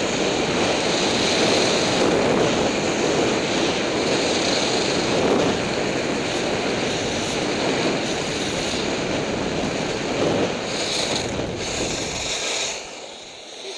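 Skis running downhill over snow: a steady rushing hiss of skis on snow mixed with wind over the microphone. It drops off sharply about a second before the end as the skier slows to a stop.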